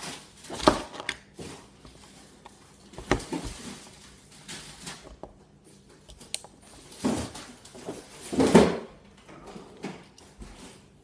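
Plastic fidget cube being worked at by hand to pry a part off: scattered knocks, clicks and scrapes with quiet handling between them, the loudest about eight and a half seconds in. The part won't come off.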